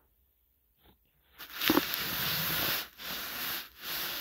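Close rustling and scraping, with a few small knocks, from dolls and the recording phone being handled next to the microphone. It starts about a second and a half in and comes in three stretches.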